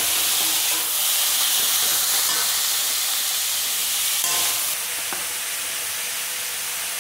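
Chopped vegetables sizzling in hot oil in a steel kadhai, with a few scrapes and taps of a perforated metal spoon as they are stirred. The stirring stops about five seconds in and the sizzle carries on a little quieter.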